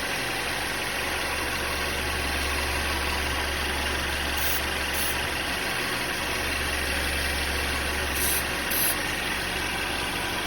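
A 2017 Mercedes-Benz E300's turbocharged four-cylinder engine idling steadily. Short hisses of aerosol belt dressing are sprayed onto the running fan belt to cure a squeak: two quick sprays about four and a half seconds in and two more about eight seconds in.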